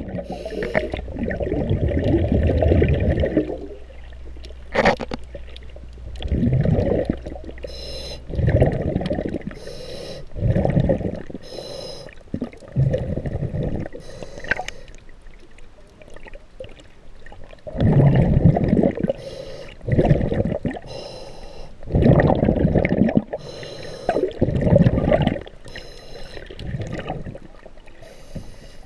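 Underwater recording of a scuba diver breathing: bursts of bubbling and gurgling from exhaled air every couple of seconds, with quieter pauses between them.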